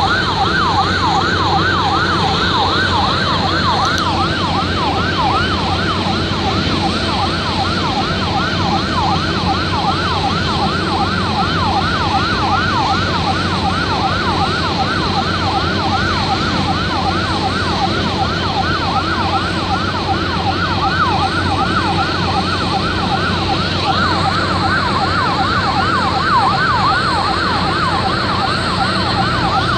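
Emergency siren in a fast yelp, sweeping up and down about three times a second, over a steady rumbling noise. It is most likely an airport fire truck sounding its siren during a water-cannon salute for an arriving aircraft.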